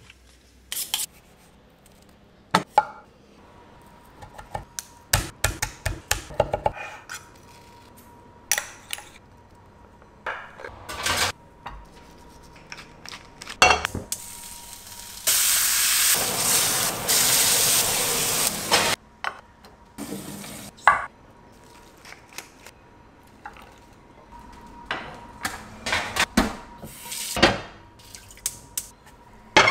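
Pots, pans and utensils clanking in scattered short knocks on a gas hob. About fifteen seconds in, the hot frying pan sizzles loudly for about four seconds.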